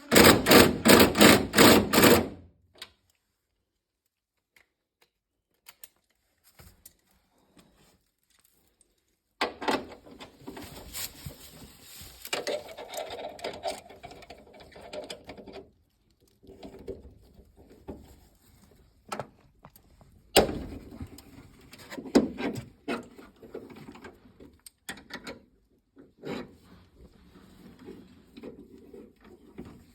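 A cordless impact driver hammers on a stuck bolt for about two seconds at the start, a fast even rattle of impacts. After a pause come intermittent clicks, knocks and tool-handling noises.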